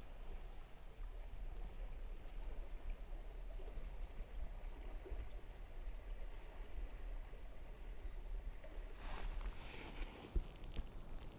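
A steady low outdoor rumble, then, about nine seconds in, rustling footsteps in the dry grass right beside the camera.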